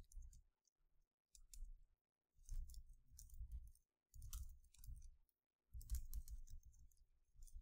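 Faint computer keyboard typing: runs of quick key clicks in short bursts, with brief silent gaps between them.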